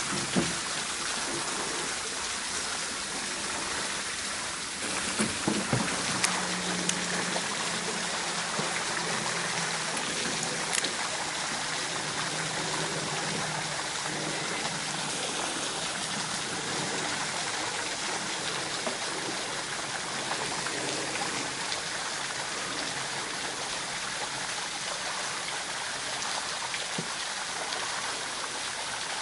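Steady sound of running water, a small stream trickling, with a few light clicks about five to seven seconds in.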